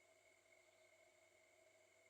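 Near silence: a faint steady hiss with a few thin constant tones, the recording's noise floor.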